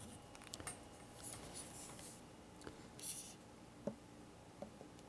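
Faint handling noises of small hand tools on model railroad track: a few light, scattered clicks and a brief rustle as the soldering iron and heat-sink clamps are positioned at the rail joiner, otherwise quiet.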